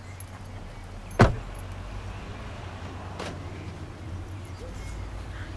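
A car's front door slams shut once, about a second in, the loudest sound here. A fainter click follows about two seconds later, over a steady low hum.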